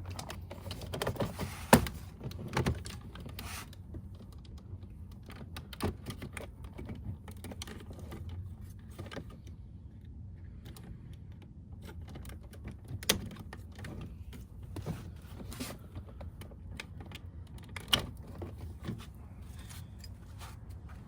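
Scattered plastic clicks and knocks from handling a car power window switch and its wiring connector during the swap, over a steady low hum.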